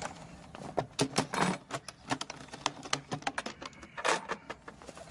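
A series of sharp clicks and knocks at irregular spacing, like light handling sounds, with the loudest clusters about a second in and again about four seconds in.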